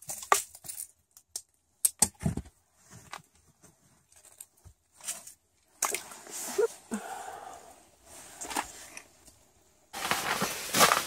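Scattered clicks, knocks and scrapes on the ice floor of an ice fishing hut, with clothing rustling, as a small pickerel (walleye) and its line are handled by a fishing hole. About ten seconds in, a louder steady hiss-like noise begins.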